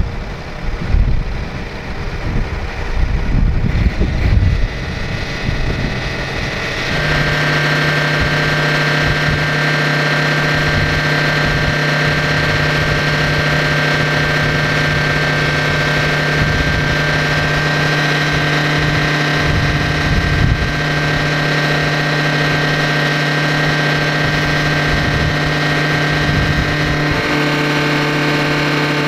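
Large farm tractor's diesel engine working under load: a rough, uneven rumble for the first several seconds, then a steady drone held at constant revs, with a slight change in tone near the end.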